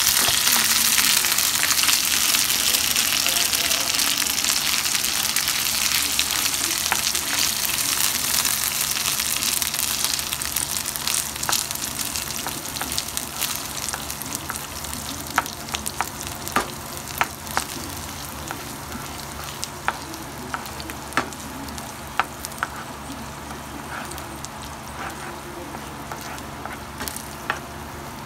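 Mashed beans frying in pork lard with onion in a skillet, sizzling steadily while a spatula stirs them. The sizzle slowly quietens, and from about halfway sharp clicks come every second or two.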